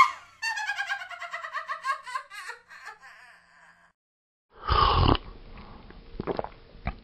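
A high-pitched laugh: a run of quick pulses falling in pitch for about three seconds. About halfway through comes a short, loud burst of noise, followed by quieter noise and a few knocks.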